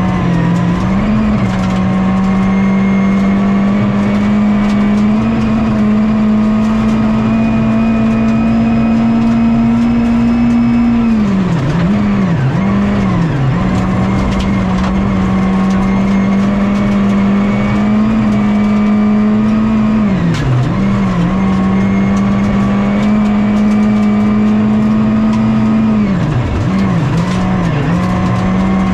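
Rally car engine heard from inside the cockpit, held at high, nearly constant revs at full throttle on a fast gravel stage, with occasional sharp clicks of gravel. Three times the revs dip and wobble briefly before settling back, as the driver lifts and shifts: about eleven seconds in, about twenty, and again near the end.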